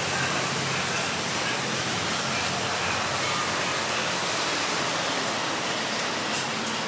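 A steady, even hiss of outdoor noise with no clear single source, and a few faint clicks about six seconds in.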